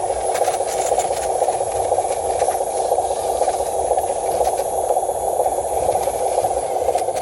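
Radio-controlled truck's small electric drive motor and gearbox whirring steadily, with a few light scrapes and rattles about a second in and again near the end.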